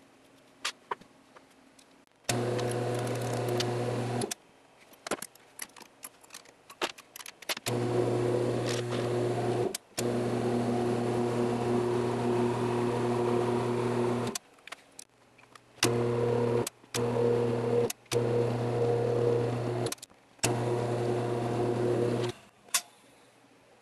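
Taig Micro Lathe II's motor running with a steady hum and a hiss on top while a knurling tool presses a pattern into a brass rod, in seven stretches that start and stop abruptly. Light clicks and taps in the gaps between.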